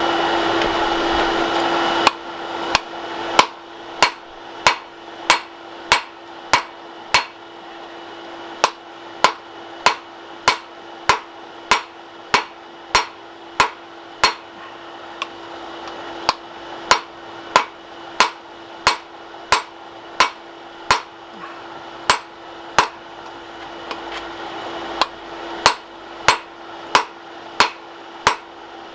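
Hand hammer striking hot 1080 carbon steel bar stock on an anvil, drawing it down: a regular run of sharp blows, about one and a half a second, with a few short pauses, each with a brief metallic ring. A steady rushing noise fills the first two seconds and cuts off suddenly before the blows start.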